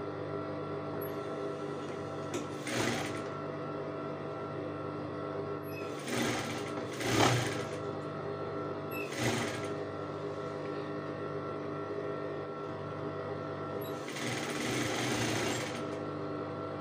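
Sewing machine stitching a seam through cotton fabric: a steady motor hum with several louder noisy stretches of stitching, the longest near the end.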